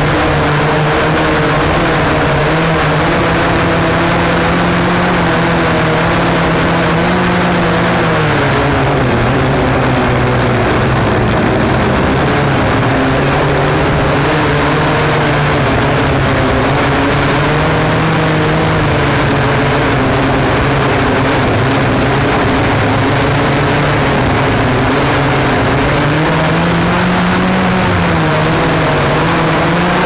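Flexify drone's electric motors and propellers whining steadily, heard from the drone's onboard camera. The pitch wavers as the motors speed up and slow down, dropping about eight seconds in and rising again near the end.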